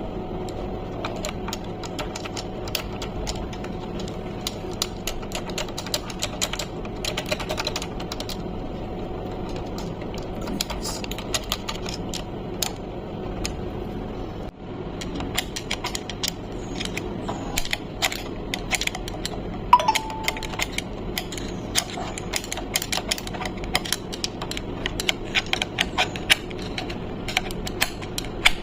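Irregular clicks and light clatter of tools and metal parts being handled while working on an air circuit breaker mechanism, over a steady hum. A brief squeak comes about two thirds of the way in.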